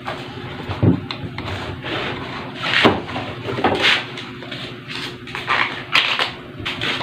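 Scattered knocks and short rustles of a banana blossom being peeled and handled on a wooden chopping board.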